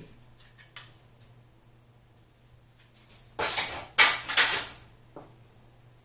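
Boxes and packaging being handled while kit parts are unpacked: a few light clicks, then a loud burst of scraping and rustling about three and a half seconds in, two more close after it, and a short knock.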